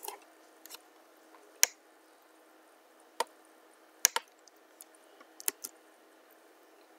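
Scattered single clicks of a computer keyboard and mouse, about seven taps spread out with gaps between them, the sharpest about a second and a half in and about four seconds in.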